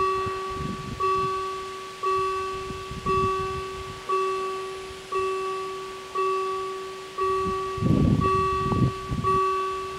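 Level crossing warning bell striking steadily about once a second, each ring dying away before the next: the crossing's warning that a train is coming as the barriers lower. A short burst of low rumbling noise comes near the end.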